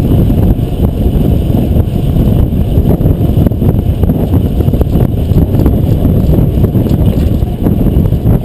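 Loud wind buffeting on the action camera's microphone while a fixed-gear bicycle is ridden at race speed: a steady, rough low rumble.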